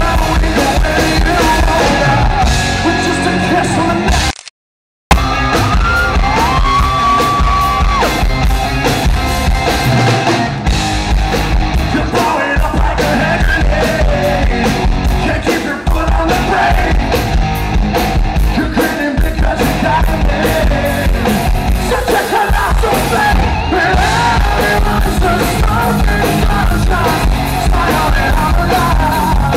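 Live rock band playing loudly, with electric guitar, drums and a male lead vocal. The sound cuts out completely for about half a second roughly four seconds in.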